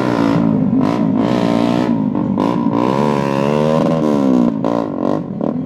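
Street motorcycle engine revved hard and held at high revs, its pitch swinging up and down again and again as the rider performs a stunt. Near the end the revs drop and a few short sharp bursts of noise follow.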